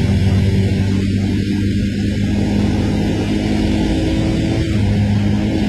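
ATV engine running steadily, its pitch dipping briefly a little past the middle and then picking up again.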